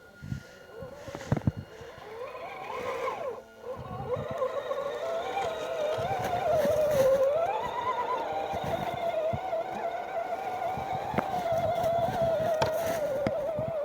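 Electric motor and gearbox whine of an RC scale 6x6 truck crawling over rough ground. The pitch wavers up and down with throttle and load, climbing highest about halfway through. A few sharp clicks come from the chassis and wheels.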